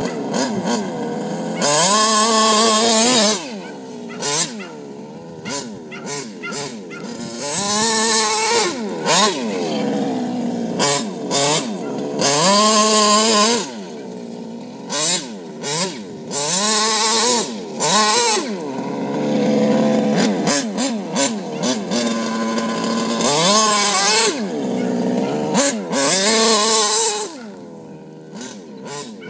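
HPI Baja RC buggy's 59cc stroked, CNC-ported two-stroke twin engine being driven hard: about six bursts at full throttle, each one to two seconds long, with the revs rising and falling between them as the throttle is blipped.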